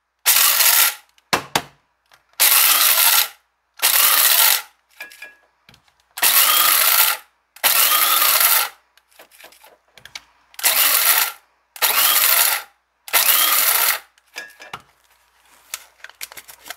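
Continental electric coffee grinder pulsed in eight short bursts of about half a second to a second and a half each, its blade whirring through dark espresso beans toward a coarse grind. A few light rattles follow near the end.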